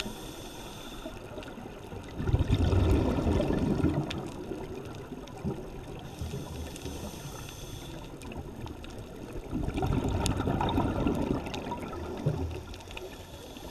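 A scuba diver's regulator breathing underwater: two long bubbling exhalations, about two seconds in and about ten seconds in, with quieter hissing inhalations between them.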